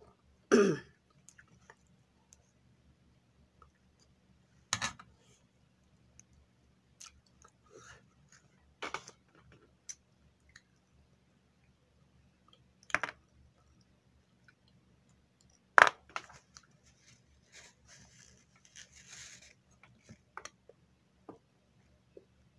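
A person eating chicken adobo with cashew nuts: quiet chewing broken by a handful of separate sharp clicks and crunches, the loudest about two-thirds of the way through.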